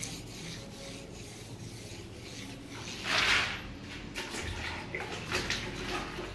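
Rubbing and scraping: one louder swish about three seconds in, then a few short scrapes.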